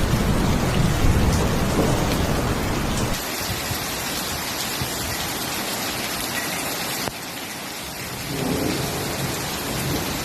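Heavy rain, with a low rumble under it for the first three seconds. The sound changes abruptly about three seconds in and again about seven seconds in.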